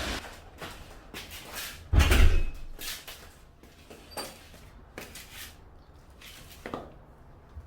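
Household handling noises: a string of knocks and clicks, like doors, panels or objects being opened and set down, with one heavy thump about two seconds in.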